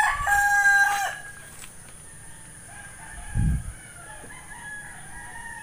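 A rooster crowing, its long call ending about a second in, followed by fainter crows from other roosters. A dull low thump about three and a half seconds in.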